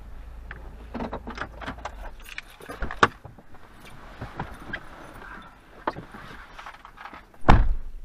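Car interior: a low engine hum stops about two seconds in, then keys jangle and click, and a car door shuts with one heavy thump near the end.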